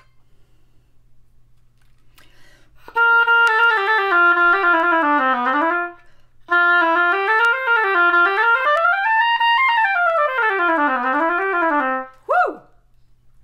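Oboe played on a freshly clipped and re-scraped reed: a falling run of notes, a short break, then a longer passage of notes rising and falling, ending in a quick slide. The reed now responds and speaks well, after several rounds of scraping and clipping.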